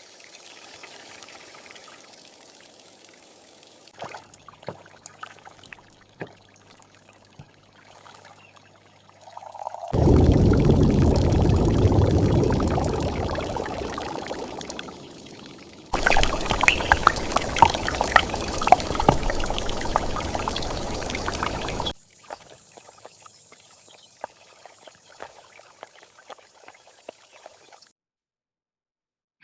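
Kitchen water sounds: water pours loudly for several seconds and gradually fades, then there is a crackly stretch full of small clicks. Scattered light knocks and clicks come before and after.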